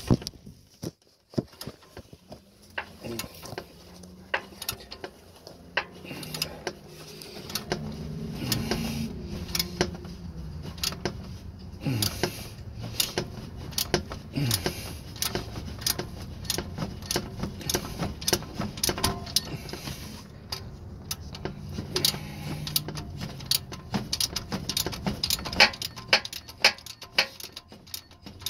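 Ratchet wrench clicking in quick runs, with small metal tool clinks, as the canister oil filter housing is worked loose.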